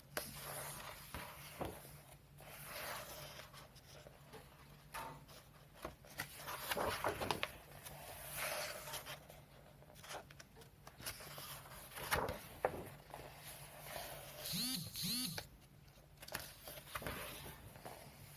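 Paper pages of a thick colouring book being turned one after another, with a dry swish every second or two. Two short pitched sounds come close together about fifteen seconds in.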